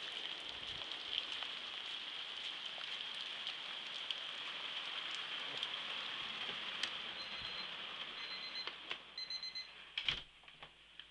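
Heavy rain falling steadily, a dense hiss that drops away near the end once indoors. Before it fades, three short high electronic beeps sound, then a sharp knock about ten seconds in.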